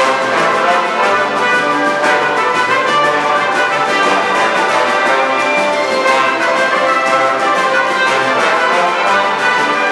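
Full symphony orchestra playing an arrangement of Mexican sones, with brass leading over the strings and percussion keeping a steady beat.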